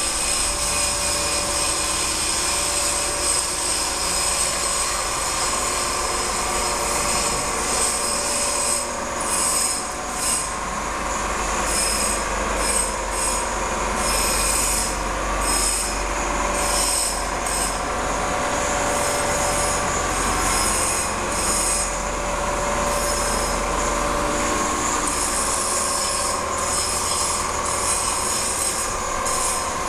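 Machinery running in a machine shop: a steady, high-pitched metallic whine made of several tones held at once, over a low hum. The highest tones flicker on and off from about nine seconds in, and the hum eases off near the end.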